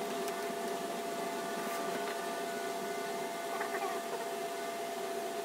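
Small electric fan running with a steady hum, with a few faint clicks of parts being handled.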